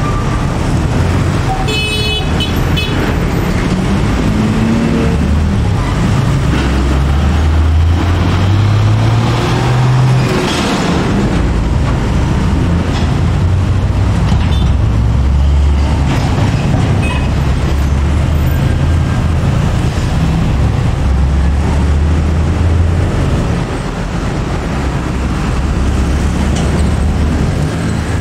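Busy road traffic: diesel trucks and container lorries running and pulling away, with motorcycles passing close by. A few short vehicle horn toots come about two seconds in, and a truck engine rises in pitch as it accelerates a few seconds later.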